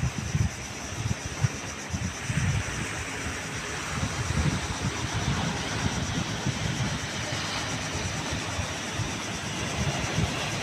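Strong wind buffeting the microphone in irregular low gusts, over the steady hiss of waves breaking on a rocky shore.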